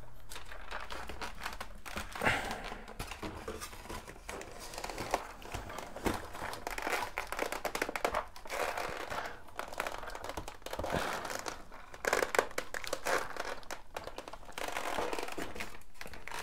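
EPO foam airframe of an RC plane creaking and rustling as wire undercarriage legs are pushed into their slots in the fuselage, with a few sharp snaps as they seat.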